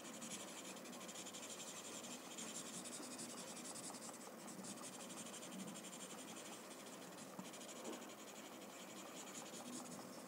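Paper blending stump rubbing graphite into drawing paper: a faint, soft scratchy rubbing that swells and eases with the strokes.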